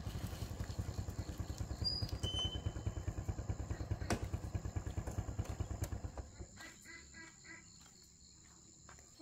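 Small motorbike engine puttering in even low pulses as it rides up and idles, then dying away about six seconds in as the engine stops.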